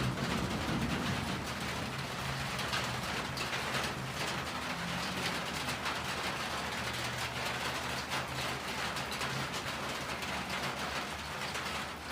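Steady rain falling and pattering on surfaces, with a low, steady hum underneath.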